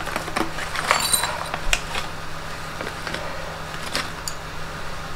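Small metal grinding plates of a meat grinder attachment clinking together as they are handled and slid out of a plastic sleeve: a few scattered clicks and light metallic clinks, with a faint steady low hum underneath.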